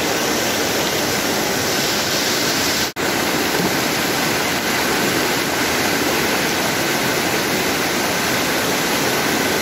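Mountain river rushing over rocks and rapids: a loud, steady rush of water. It cuts out for an instant about three seconds in.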